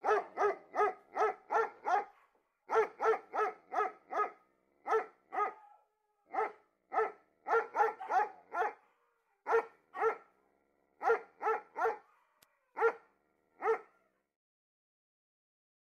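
Dog barking in quick runs of short barks, several a second, with brief pauses between the runs. The barking stops about two seconds before the end.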